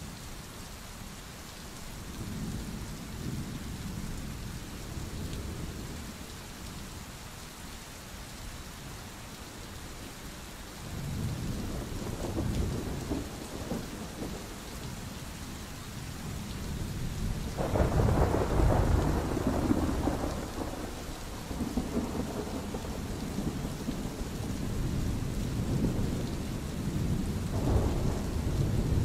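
Steady rain with rolling thunder: low rumbles swell a few times, the loudest peal a little past halfway, followed by more rumbling.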